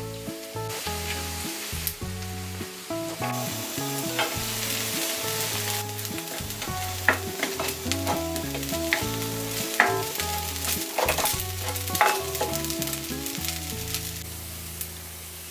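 Vegetable fried rice sizzling in a hot pan as it is stirred and tossed with a spatula, with sharp scrapes and taps of the spatula against the pan scattered through a steady sizzle.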